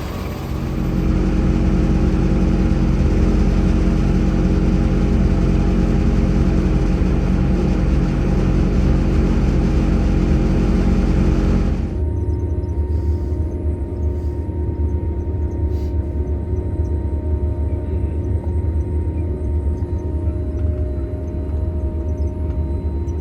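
Grimme Varitron 270 self-propelled potato harvester's engine running steadily under load as it pulls away and lifts. About twelve seconds in, the sound changes abruptly to a quieter, lower engine drone with a faint steady whine.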